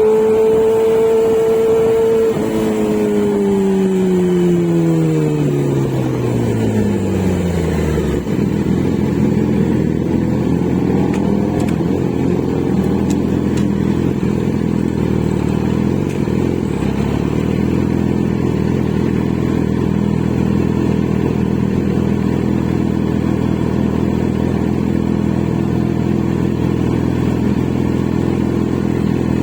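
Kawasaki Z900's inline-four engine held at high revs, then the revs falling away over about six seconds and settling into a steady idle.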